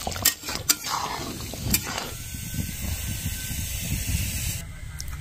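Fish curry hissing and steaming in a metal kadhai, with a few sharp clicks of a metal spatula against the pan in the first two seconds. After that the hiss drops away and a low rumble remains.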